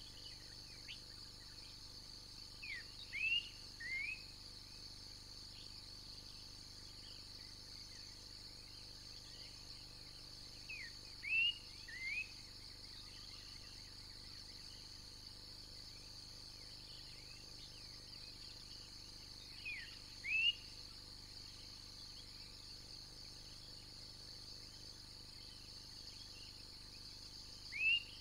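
Steady high-pitched insect drone from the forest, with a bird repeating a short phrase of two or three quick sweeping notes about every eight to nine seconds; the bird phrases are the loudest sounds.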